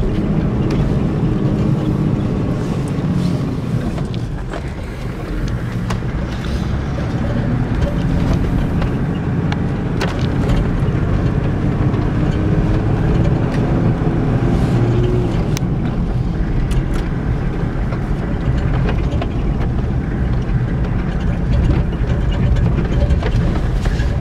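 Car engine running and tyres rumbling over a rough dirt track, heard from inside the cabin, with scattered knocks from bumps. The engine note rises for a few seconds past the middle.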